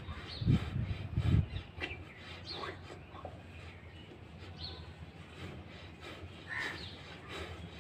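Two dull low thumps in the first second and a half, then birds chirping with short, scattered calls.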